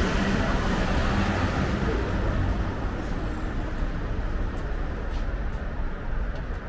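Road traffic: engines and tyres of passing vehicles, loudest in the first few seconds and then easing a little. A thin, high whine falls in pitch and fades out about three seconds in.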